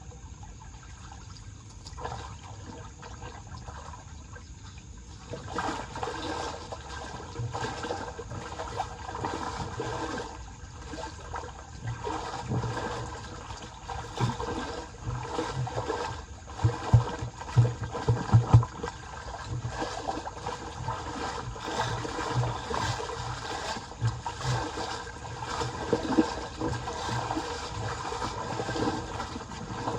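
Floodwater rushing down a cleared street drain, getting louder about five seconds in. Short knocks come through it, with a cluster of loud ones just past the middle.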